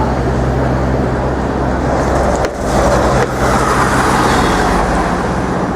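City street traffic: a steady low engine hum under road noise, which swells for a moment about three seconds in.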